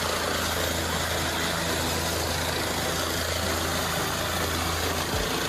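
Helicopter running on the ground with its main rotor turning: a steady low engine hum under a constant rushing noise.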